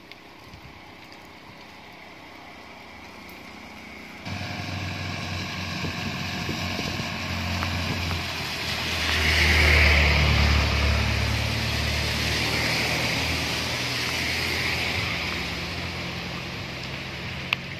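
A faint hiss at first, then a vehicle engine comes in suddenly about four seconds in, grows louder to a peak around ten seconds and slowly fades.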